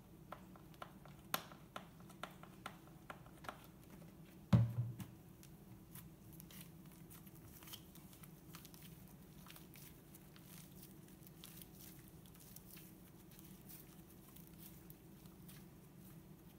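A lotion pump bottle clicks as it is pressed several times, then a single low thump about four and a half seconds in, the loudest sound. After that, soft butter slime is kneaded and stretched by hand, with faint small crackles and pops.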